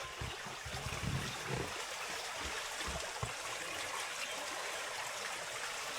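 Stream water flowing in a steady, even rush. A few low thuds come in the first half, about a second and three seconds in.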